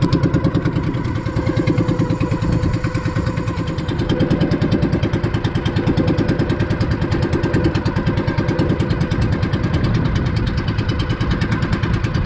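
Outrigger fishing boat's engine running steadily with a fast, even pulse while the boat is underway.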